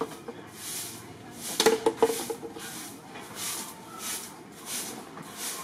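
Cicadas buzzing in even, high-pitched pulses about one and a half times a second, with a short burst of sharp clicks just under two seconds in.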